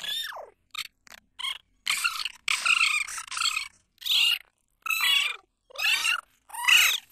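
Cartoon voice clips pitched up very high and chopped into about nine short bursts, with silent gaps between them and the pitch sliding up and down within each burst.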